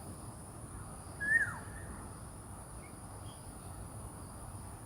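A bird gives one short whistled call about a second in, rising briefly and then falling in pitch, over a steady outdoor background with a thin, high, continuous insect-like tone.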